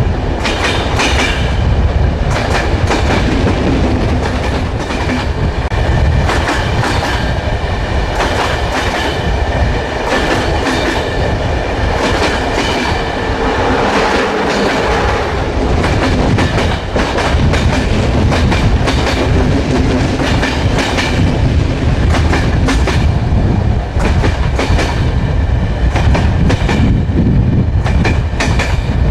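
Train wheels rolling over the rails at speed: a steady loud rumble broken by irregular clicks of the wheels over rail joints, with a faint steady high whine above it.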